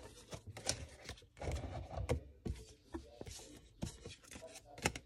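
Light, irregular taps and rustles of trading cards and their plastic packaging being handled on a wooden table.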